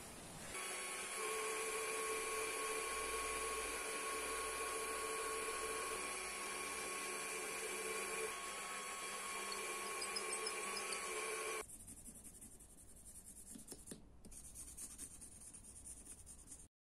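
A small power tool's motor running steadily with a constant whine for about eleven seconds during knife-blade work, then switching off suddenly, leaving only faint light scraping and ticks.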